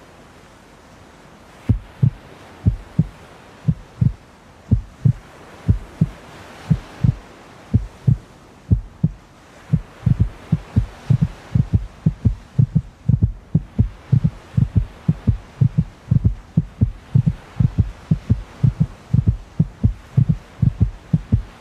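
Heartbeat sound effect: low double thumps starting about two seconds in, slow at first and then quickening steadily, like a racing heart.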